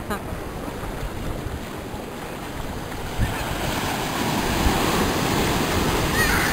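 Sea surf washing in the shallows, a steady rushing wash with wind buffeting the microphone; the wash grows louder about halfway through.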